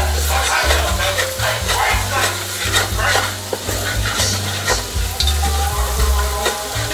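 A wooden spoon stirring a sizzling sauce in a large metal pot, with frequent light scrapes and clicks against the pot, over background music with a strong bass line.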